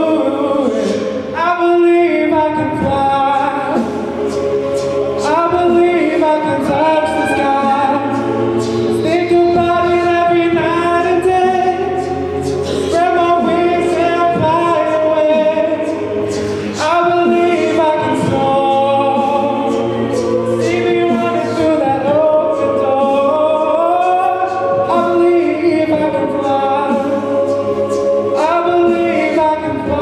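A mixed-voice a cappella group singing a pop mashup, a male lead voice over sustained backing harmonies, with short sharp beats recurring throughout.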